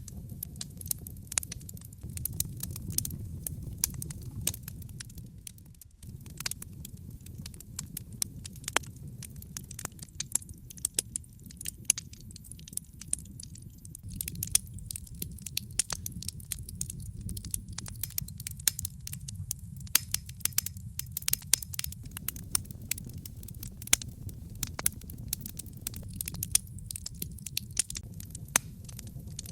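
Wood logs burning in a fireplace: constant crackling with frequent sharp pops over a low, steady rumble of the flames.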